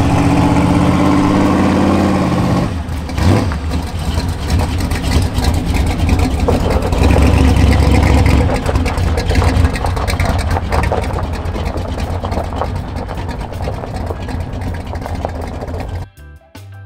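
Small-block Chevy V8 engine of a 1983 Chevy C10 drag truck running loud. It is a steady rumble for the first couple of seconds, then turns rougher and noisier, loudest around the middle, and cuts off about a second before the end.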